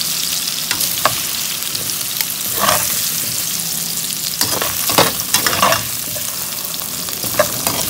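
Hot cooking oil sizzling in a kawali (wok) as fried potato and carrot pieces are scooped out with a metal spatula and a wire-mesh strainer. Short scrapes and knocks of metal against the pan come every second or so, busiest near the middle.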